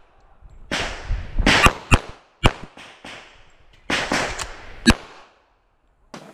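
A .45 ACP Sig Sauer 1911 MAX pistol firing a string of shots in uneven groups, each crack trailing a short echo. The shots stop about five seconds in.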